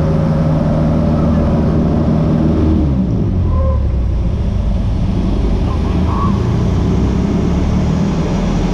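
Light single-engine aircraft's piston engine and propeller droning inside the cabin during aerobatics. The engine note drops about three seconds in, then settles into a rougher steady drone.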